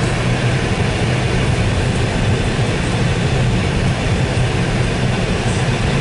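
Inside a Jeep driving on a snow-covered road: a steady rumble of engine and tyres, with no change in pace.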